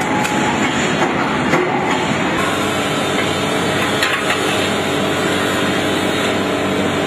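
Heavy machinery running steadily in a workshop: a dense, even mechanical noise with several steady tones in it, and a few light knocks.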